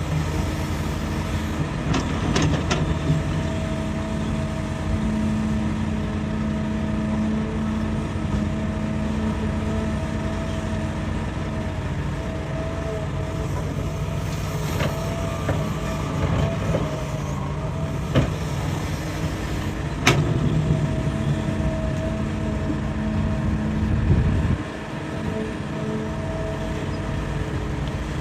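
Hitachi hydraulic excavator's diesel engine running steadily under load while digging rock, with a few sharp metallic clanks. About three-quarters of the way through, the engine note drops suddenly as the load eases.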